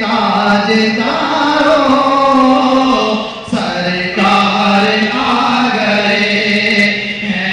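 Men's voices chanting a devotional chant in long, held melodic lines, with a brief break about three and a half seconds in.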